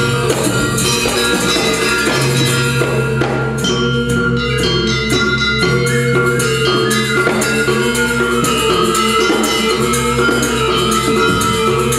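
Balinese gamelan playing: bronze metallophones struck in quick, dense strokes over sustained low tones.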